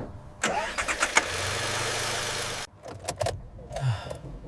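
A car engine starting and running, the sound cutting off suddenly a little over halfway through, followed by a few clicks and knocks.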